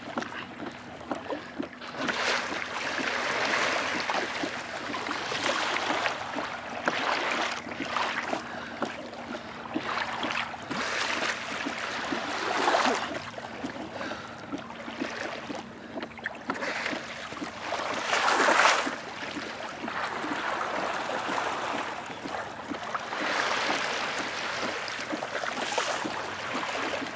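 Sea water splashing and lapping against a plastic kayak's hull, an uneven wash of small splashes that swells and fades, with louder surges about 13 and 18 seconds in.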